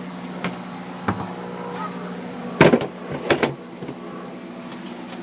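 A plastic tub being set down and shifted on a plywood shelf: a couple of light knocks, then a cluster of louder knocks about two and a half seconds in, over a steady low hum.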